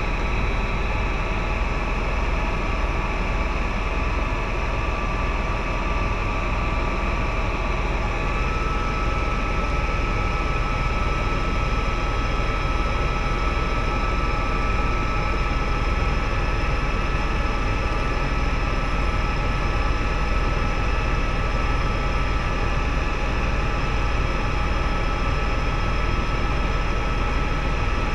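Helicopter in flight heard from inside the cabin: a steady, loud drone of rotor and turbine engine with high, steady whining tones. One of the tones steps slightly higher about eight seconds in.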